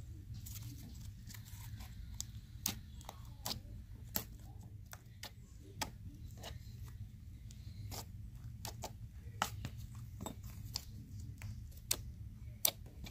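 White glue-and-borax slime being stretched and squeezed by hand: faint, irregular sticky clicks and pops, over a low steady hum.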